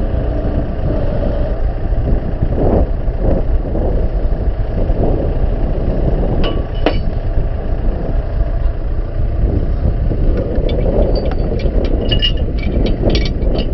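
Tractor engine running steadily. Light metallic clinks come twice about halfway and in a quick run near the end.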